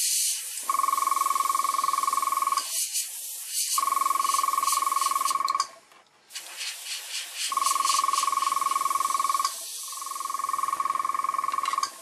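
Airbrush spraying in four bursts of about two seconds each: a steady high whistle over a hiss of air, with short pauses between.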